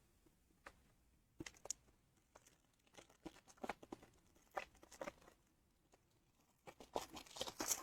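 Foil trading-card pack wrapper being torn open and crinkled by hand: faint, scattered crackles, thicker near the end.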